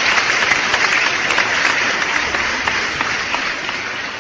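Crowd applause: many hands clapping at once in a dense patter, fading gradually toward the end.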